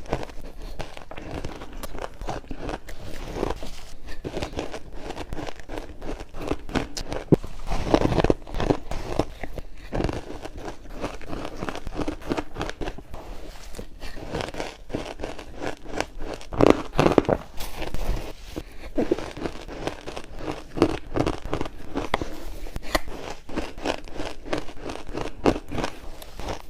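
Close-miked crunching of ice being bitten and chewed: a dense run of irregular crunches and cracks, heavier in bursts.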